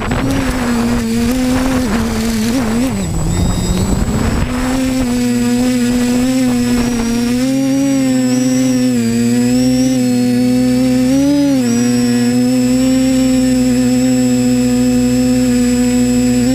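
Electric motors and propellers of a small radio-controlled aircraft running at a steady whining pitch, heard close from its onboard camera. For the first few seconds the pitch wavers and dips over a noisy rustle; after that it holds steady with slight wobbles.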